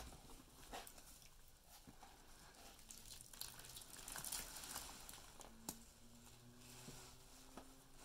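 Wet sponges caked in Comet cleansing powder being squeezed and crumbled by hand in a plastic tub: soft crackling and squishing with small clicks, loudest about four seconds in, and one sharper click a little later.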